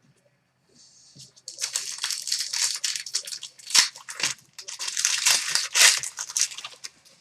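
Crinkly plastic wrapping being handled and crackling. A quick, uneven run of crackles starts faintly about a second in and goes on for about five seconds.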